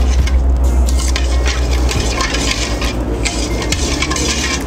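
Metal spatula stirring vermicelli through sugared water in a steel kadhai, scraping and clinking against the pan in repeated strokes.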